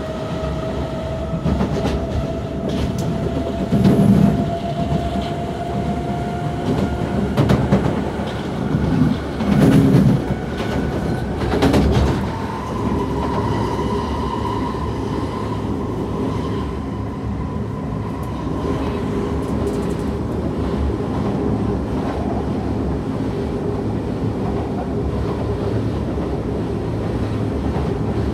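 Interior running noise of a Kawasaki C151 metro train under way, its traction motors whining in a tone that slowly climbs in pitch as the train gathers speed. The wheels rumble over the track, with a few heavier jolts around the middle. A higher, steady motor tone comes in about halfway through.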